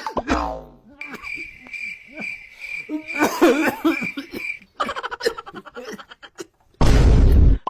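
A high chirp repeating about three times a second for several seconds, with voices over it, then a loud burst of noise near the end.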